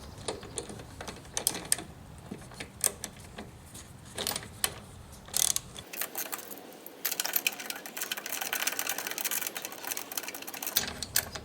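Socket wrench ratchet and 5/8-inch deep socket working a spark plug loose: scattered clicks and knocks at first, then, about seven seconds in, a run of rapid ratchet clicks lasting several seconds.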